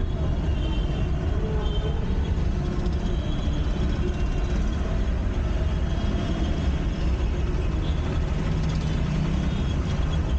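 Steady low rumble of a car's engine and road noise, heard from inside the cabin while the car moves slowly through dense city traffic.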